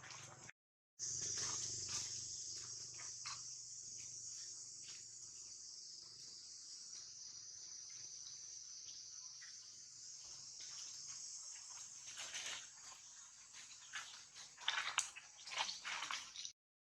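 Insects droning in a steady high-pitched band, with scattered faint ticks and a few brief louder rustles near the end.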